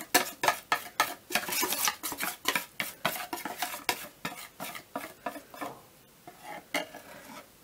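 Runny sponge batter being scraped and poured out of a plastic mixing bowl into a silicone baking mould: a quick run of scrapes and wet slaps that thins out near the end.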